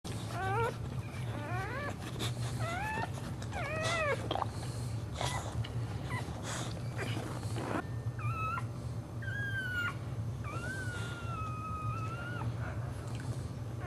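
Boxer bitch in labour whining: a string of short whines that bend up and down in pitch, then one long drawn-out whine near the end. There is some rustling of the bedding between whines, over a steady low hum.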